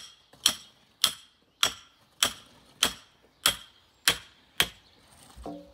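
Claw hammer driving a stake for the timber formwork of a concrete footpath: about eight evenly paced blows, one every half second or so, each with a short ringing note.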